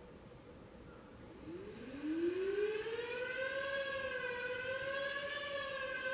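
Sireno UA electric siren, run on 24 volts, heard from about 75 feet away. It winds up from about a second and a half in, rising in pitch for about two seconds, then holds a steady, slightly wavering wail.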